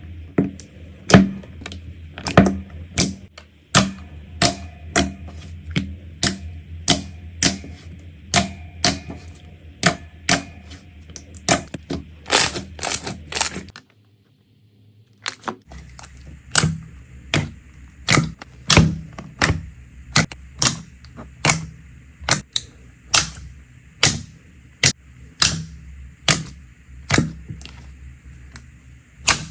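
Slime being squeezed and poked, giving a run of sharp clicking pops about two a second, broken by a short silence about halfway through.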